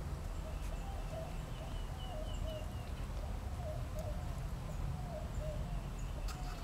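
A bird calling in a long series of short, wavering notes over a steady low rumble, with a click near the end.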